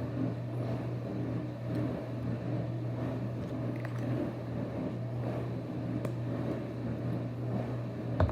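A steady low hum, as from a running motor or appliance, with a few faint clicks and one sharp tap near the end.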